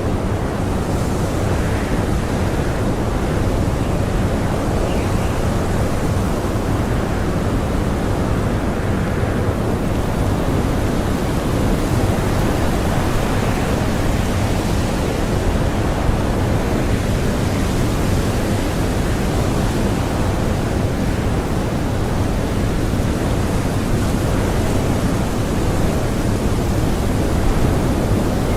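Strong blizzard wind blowing steadily, a dense, even rush.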